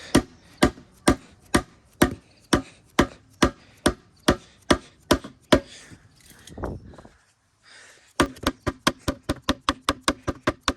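Hammer blows driving a bushing into a BMW E36 rear subframe: steady strikes about two a second, a short pause about seven seconds in, then quicker strikes about three a second.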